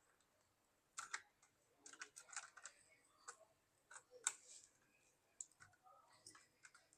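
Faint scattered clicks and taps of small plastic and metal laptop parts being handled and fitted during reassembly, a few at a time with short gaps between.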